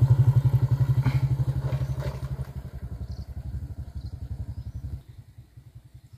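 Small motorcycle engine running with a fast, even putter as the bike rides past close by, loudest at first and fading as it moves away, dropping off about five seconds in.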